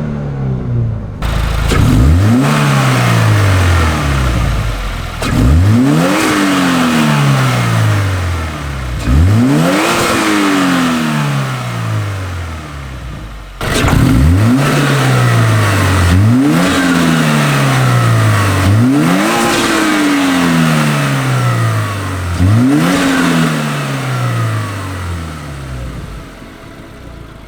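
Subaru WRX turbocharged flat-four with an Invidia Q300 cat-back exhaust being revved repeatedly: about seven quick blips, each rising sharply and then falling slowly back toward idle.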